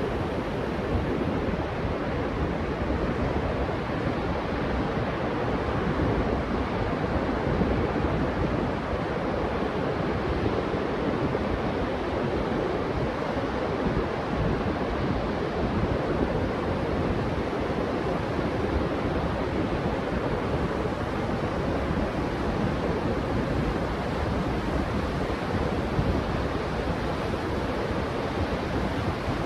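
Ocean surf rushing steadily on a beach, with wind on the microphone.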